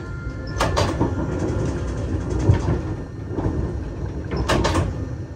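Regional passenger train running on the line, heard from the driver's cab: a continuous low rumble with two short clusters of sharp clicks, one near the start and one near the end.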